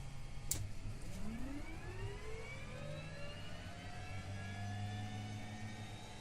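Helicopter turbine engine starting up: a sharp click about half a second in, then a whine that rises in pitch from about one second in and levels off, over a steady low hum.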